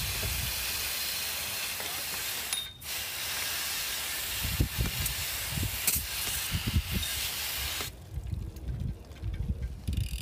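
A garden-hose spray of water hitting a bicycle's chain and chainring, washing off loose dirt: a steady hiss with a brief break about two and a half seconds in. The spray cuts off about eight seconds in.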